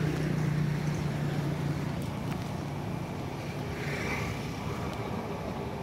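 A steady low engine hum, loudest in the first two seconds and then easing off.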